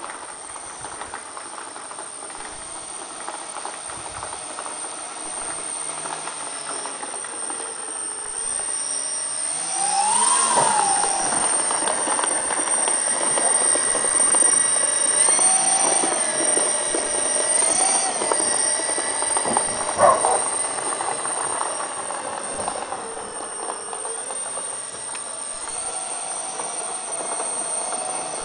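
Four brushless electric motors and propellers of an RC C-130 Hercules foam model whining as it taxis. The pitch rises and falls with the throttle and is loudest through the middle. A single short knock comes about twenty seconds in.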